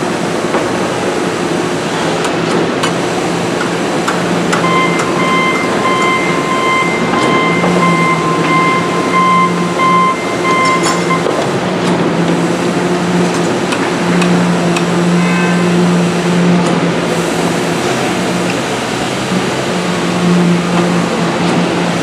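Machinery din of a concrete deck pour: a steady mechanical drone from the concrete pump and the vibrators working the fresh concrete, wavering and swelling at intervals. A rapid electronic beeping on a steady pitch joins about five seconds in and stops after about six seconds.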